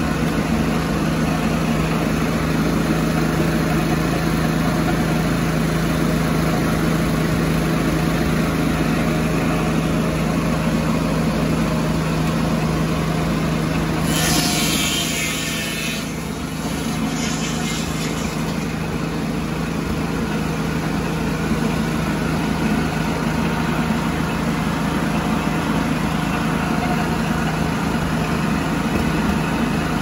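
Mighty Mite portable circular sawmill running steadily, its engine driving the circular blade through a log as the saw head travels along its track. About halfway through, a brighter, hissing rush lasts a few seconds.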